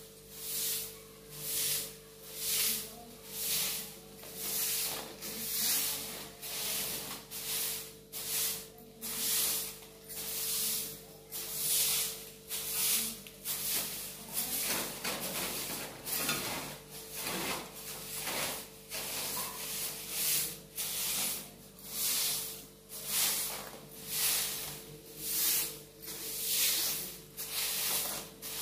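Soft grass broom sweeping a bare cement floor in steady, even strokes, one swish about every second.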